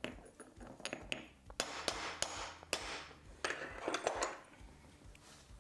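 Hammer chipping a tile into small mosaic pieces: a series of sharp knocks and clinks.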